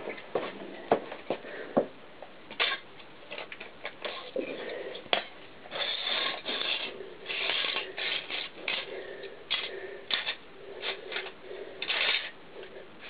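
Broken plastic pieces of a smashed VHS cassette being gathered, shuffled and set down by hand on a concrete floor: a running series of clicks, clatters and scrapes.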